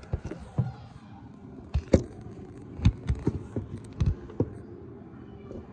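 Handling noise from a phone being picked up and set back down on a kitchen counter: a dozen or so irregular knocks and dull low thuds, the loudest about two, three and four seconds in.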